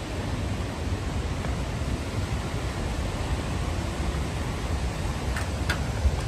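Steady rushing roar of waterfall and river water, with a low, unsteady rumble of wind on the microphone. Two faint short ticks come near the end.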